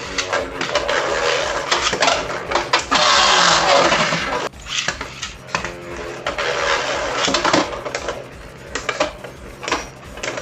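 Beyblade spinning tops clashing and scraping against each other in a stadium: a rapid clatter of sharp hits over a steady grinding hiss, loudest about three to four seconds in.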